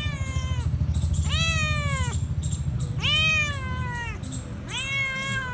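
Domestic cat meowing four times, a call about every one and a half seconds, each meow dropping in pitch at its end.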